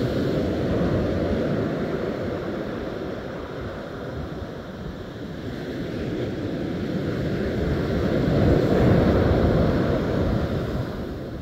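Low rush of wind buffeting the microphone mixed with breaking surf, swelling about a second in and again, loudest, near the end.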